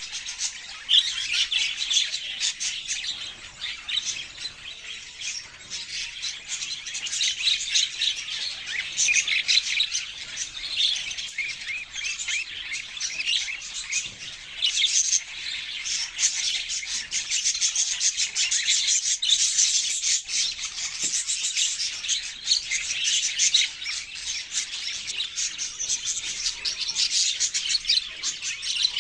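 A group of budgerigars chirping and chattering nonstop, many short calls overlapping.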